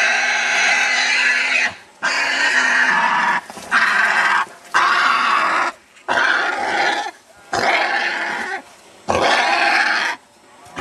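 Small wild pig squealing loudly while held down by a hunter after being caught: a run of about seven long squeals, each a second or so, with short breaks between them.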